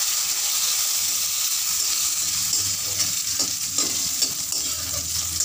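Curry leaves and mustard seeds sizzling with a steady hiss in hot oil in a kadai, tempering and starting to release their aroma. In the second half a spatula stirs through them with a few short scrapes against the pan.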